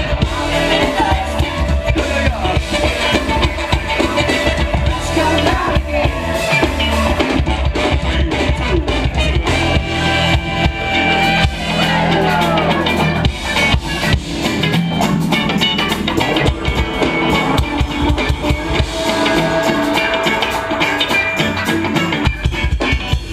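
Live funk band playing, with drum kit and guitar.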